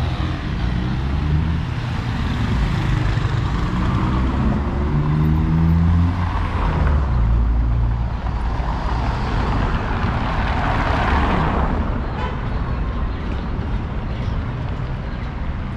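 City street traffic: a motor vehicle's engine runs close by and rises in pitch as it pulls away, then a rush of passing traffic swells and dies away about twelve seconds in.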